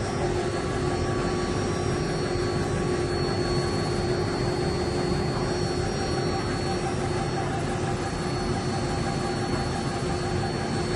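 CNC metal engraving machine running: a steady whine with a constant pitch over an even rush of noise, with no change in speed or load.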